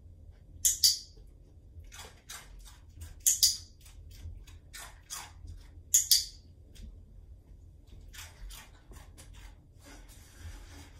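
A dog-training clicker is clicked three times, each click a sharp double snap, at roughly even intervals about three seconds apart, marking the dog's correct moves as it pivots on a perch. Fainter taps and rustles fall between the clicks.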